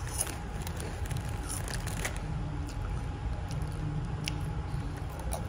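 Close-up crunching and chewing of a red puffed corn snack, with sharp crackles scattered over a steady low background hum.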